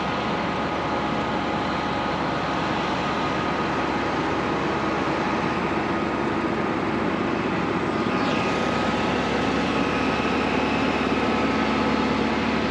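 Heavy diesel engines running steadily, heard from inside a truck cab. A higher whine and a deeper hum join about eight seconds in.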